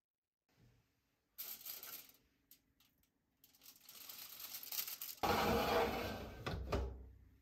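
Slices of bread laid on a foil-lined toaster oven rack, with rustling and clicks. The metal rack and door are then handled and the door is shut: a loud scraping clunk about five seconds in, followed by a few small clicks.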